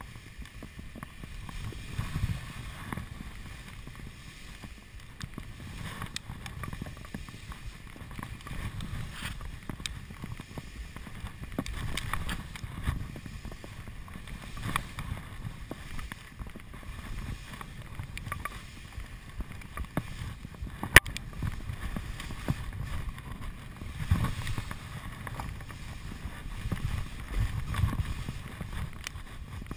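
Touring skis sliding down a snow slope, with wind buffeting the microphone in uneven low gusts. Scattered sharp clicks of skis and poles run through it, one louder click about two-thirds of the way through.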